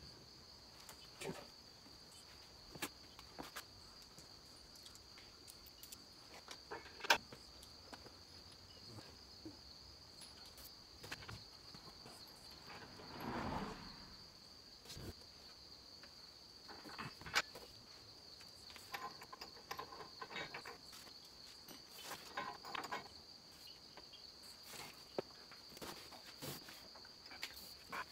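Scattered faint clicks and knocks of metal hitch hardware and hand tools as a receiver hitch is bolted up under a pickup's rear frame, with one sharper knock about seven seconds in. Under it runs a steady high-pitched buzz.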